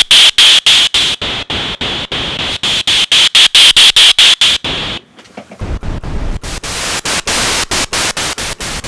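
Synthesizer noise generators (vintage ARP 2600 and Korg ARP 2600 FS) played from the keyboard: rapid bursts of hiss, about four to five a second. Up to about five seconds in the hiss has a bright whistling band in it; after that, from the other synth, it is fuller in the bass.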